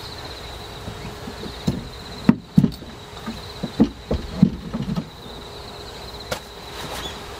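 A quick series of wooden knocks and clunks as a hatchet is hung on hooks on a wood-panelled wall, bunched in the middle few seconds. Behind it an insect trills steadily in a high, pulsing tone.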